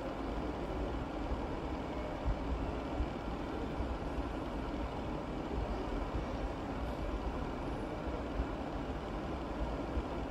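Steady low rumbling background noise, even throughout, with a couple of faint taps.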